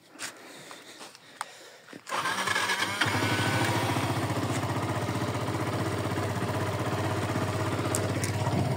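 Motorcycle engine starting about two seconds in, then settling into a steady idle.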